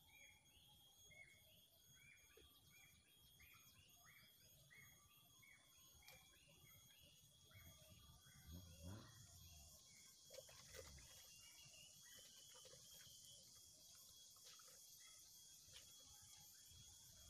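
Near silence with faint garden ambience: a bird repeats a short falling call about twice a second, fading out around the middle, over a steady thin high tone. There are a few soft knocks near the middle.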